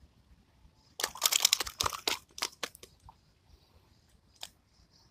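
A burst of crinkling, crunching handling noise about a second in, lasting about a second, followed by a few scattered sharp clicks and one more click near the end.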